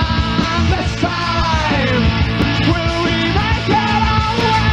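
Rock band music in a punk-rock vein: drums, bass and guitars playing, with a lead melody that slides and bends in pitch over them.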